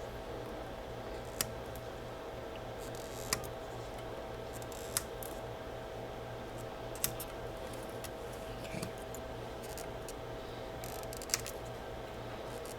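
Flush cutters snipping off the excess leads of freshly soldered resistors on a circuit board, several sharp clicks one to four seconds apart, over a steady low hum.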